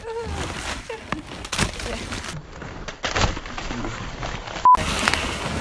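Crinkling and rustling of packing paper and cardboard boxes being handled, with a few sharp clicks and faint voices. Near the end a very short steady electronic beep cuts in.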